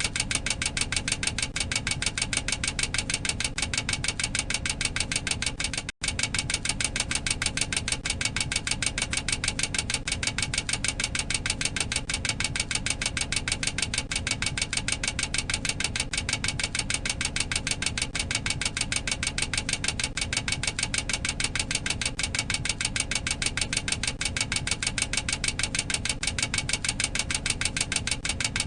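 Boeing 737-800 cockpit overspeed warning clacker: a rapid, steady train of sharp clacks, many a second, with a momentary break about six seconds in. It signals that the aircraft is exceeding its maximum operating speed.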